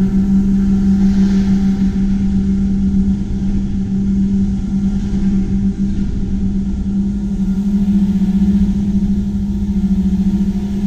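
Two-stroke chainsaw running steadily at high revs in a cut: a loud, even drone that holds one pitch, nudging up slightly near the end.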